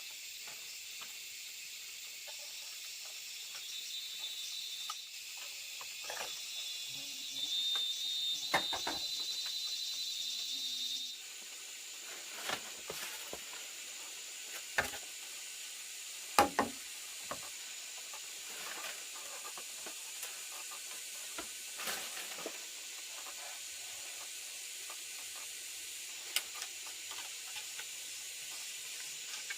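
A steady high hiss, with a wavering high-pitched tone for several seconds near the start and a scattered handful of short knocks or clicks.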